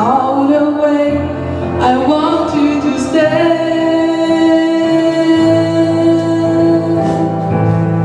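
Pop ballad sung live with instrumental accompaniment; about three seconds in, a long note is held steady for several seconds.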